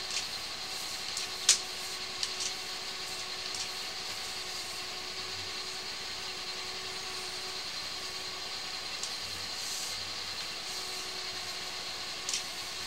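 Sewer hydro-jetter running steadily, a continuous engine drone, with a few sharp clicks, the loudest about a second and a half in and another near the end.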